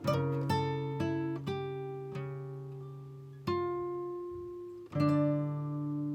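Acoustic guitar music: ringing chords, several in quick succession over the first two seconds, then slower, with the loudest chord about five seconds in.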